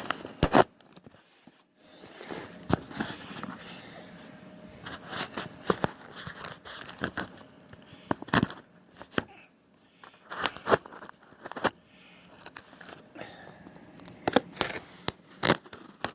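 A shipping package being torn open by hand, with irregular tearing, crinkling and rustling of packaging and a scatter of sharp rips.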